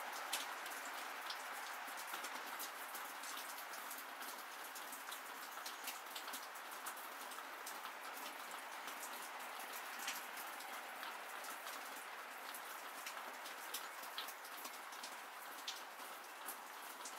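Steady rain falling, with many separate sharp drips ticking throughout.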